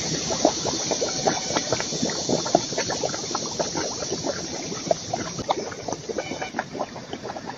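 Gas bubbles coming up through standing rainwater in a waterlogged field: many quick small pops and plops, several a second, over a steady hiss.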